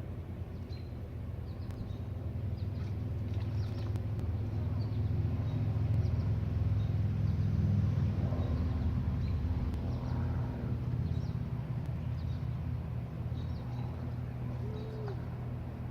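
A motor running with a low, steady hum that grows louder toward the middle and then eases off, with faint short high chirps above it.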